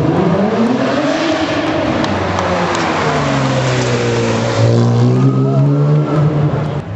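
A supercar's engine revving and accelerating, its pitch rising then falling, followed by a strong, steadier low engine note that cuts off near the end.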